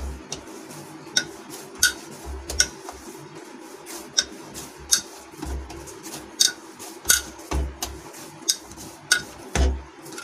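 Stainless-steel plate knocking and clinking on the counter as a ball of dough is pressed and kneaded by hand in it. The sharp clinks and dull thumps come irregularly, about once or twice a second.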